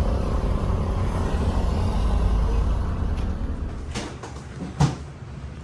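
Low rumble of a running motor vehicle, fading after about three and a half seconds. Then two sharp clicks or knocks near the end, the second louder.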